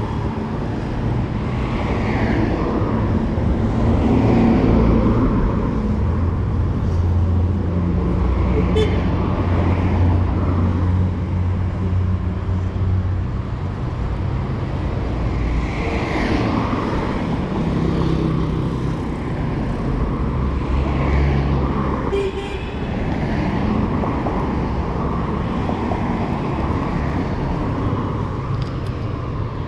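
City road traffic: motor vehicles running and passing, with a low engine hum that swells twice over a steady street noise.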